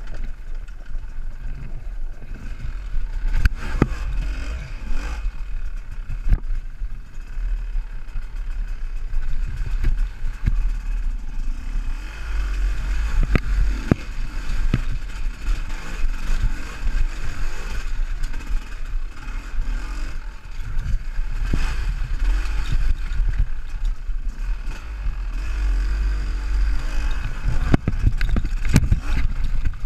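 Enduro dirt bike engine running and revving unevenly as it is ridden slowly over a rough, rocky trail, with repeated knocks and clatter from the bike jolting over stones.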